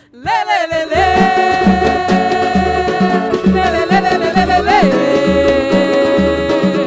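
Pagode band music starting up again after a brief break: a held, gliding melody over an even bass beat of about two pulses a second, with no words sung.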